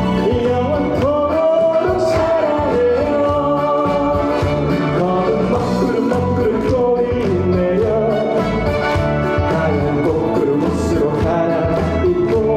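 Trot backing track playing an instrumental passage: a lead melody over a steady beat.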